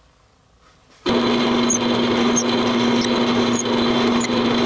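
Drill press running with a steady hum, its bit boring holes in a cherry blank. It starts abruptly about a second in, after a second of quiet.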